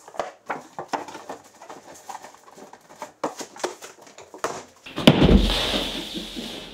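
Cardboard boxes and packaging being handled, sped up, so it comes out as a quick patter of clicks and rustles. About five seconds in, a sudden loud rushing noise with a low thump, fading out.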